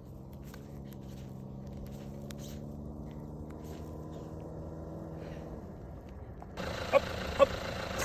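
A vehicle engine idling steadily, its low hum drifting slightly in pitch. About six and a half seconds in, the sound changes abruptly and two short, sharp, loud cries or calls come in.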